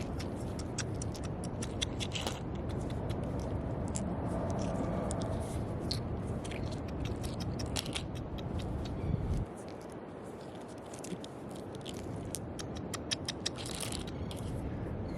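Gritty scraping and crunching with many sharp clicks, as sand and small stones are dug and handled on a beach, over a steady low rumble that drops away suddenly about two-thirds of the way through.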